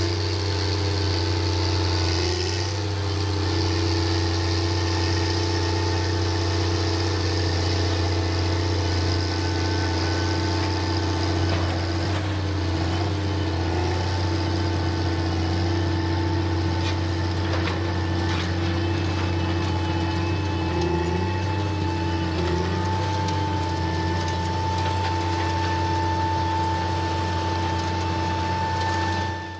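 Large diesel farm machine's engine running steadily, with a steady whine above it that grows a little louder near the end.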